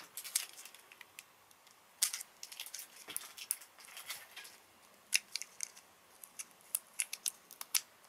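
Two stuck-together batteries being worked apart by hand: scattered light clicks of fingernails and battery casings, with faint crinkling of their plastic wrap.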